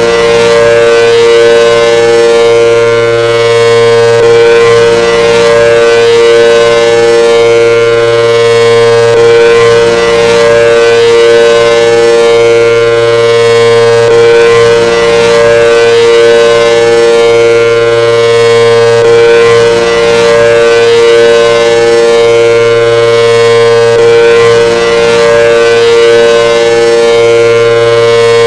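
Outdoor civil-defense warning siren sounding a long, loud steady tone, with a lower hum that swells and fades about every two seconds. Right at the end the pitch begins to fall as it starts to wind down.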